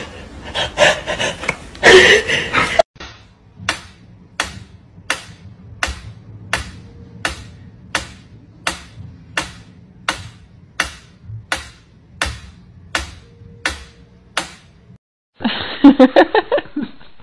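Mechanical pyramid metronome ticking steadily at about two ticks a second. It is preceded by a few seconds of louder, mixed rustling sound, and a different loud sound cuts in near the end.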